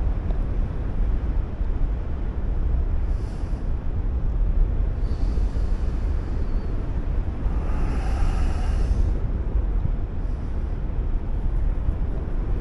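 Steady low rush of airflow buffeting the microphone during paraglider flight.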